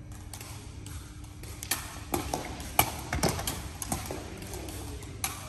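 Sepak takraw ball being kicked and bouncing on a hard court: a quick run of sharp knocks from a little under two seconds in to about three and a half seconds, the loudest near three seconds.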